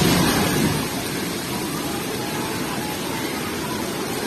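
Rushing floodwater of a swollen river, a steady dense roar of water, louder for about the first second.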